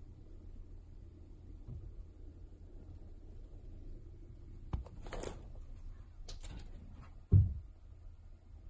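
A few light knocks and scrapes, then one louder thump near the end, over a low steady hum.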